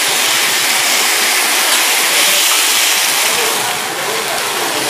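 Steady sizzling hiss from a hibachi griddle with flames burning on it.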